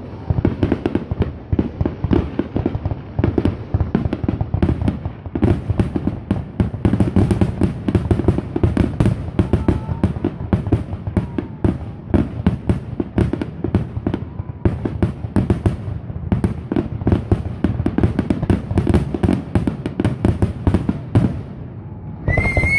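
Aerial fireworks shells bursting in quick, continuous succession, with dense bangs and crackling. Just before the end, a high steady tone joins in with a second, lower tone beneath it.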